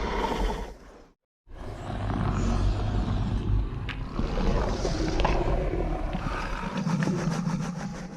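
Indominus rex creature sound effects: one roar dies away about a second in. After a short silence a long, deep, rumbling growl runs for about seven seconds.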